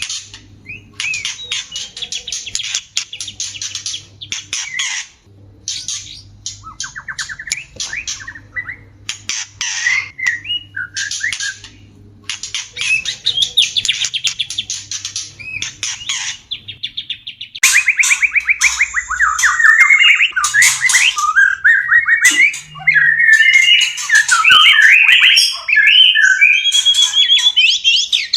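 White-rumped shamas calling: a run of rapid harsh, rasping chatter calls, then from about 17 seconds in a louder, varied song of warbling whistles and trills.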